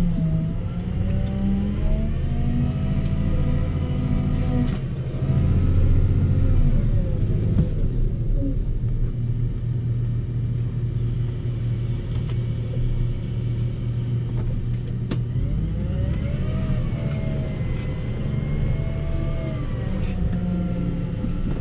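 Volvo L60H wheel loader's diesel engine running hard under load while pushing snow, with a whine that rises and falls several times as the machine works and lifts the loaded snow pusher.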